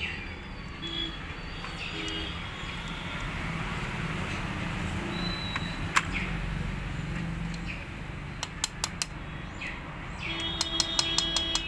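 Sharp metal clicks from nose pliers and the camshaft's lock clip being worked into its groove on a Bajaj Discover 125 cylinder head. There is a single click about halfway, a quick run of clicks a little later and more near the end, over a steady low hum.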